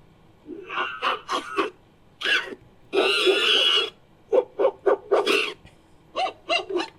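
Made-up monkey-like creature calls: several clusters of short, pitched calls, with one longer call about three seconds in.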